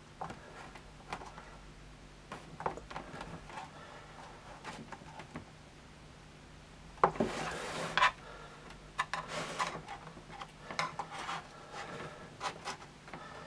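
A small knife blade scraping and prying under the plastic top grille frame of a subwoofer cabinet, with irregular clicks and scrapes as it works against the plastic clips holding the frame; a louder scrape comes about seven seconds in.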